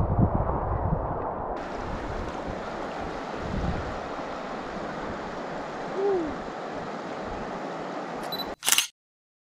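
Steady rush of a shallow river's current, with a few low bumps. Near the end a sharp loud click, after which the sound cuts out completely.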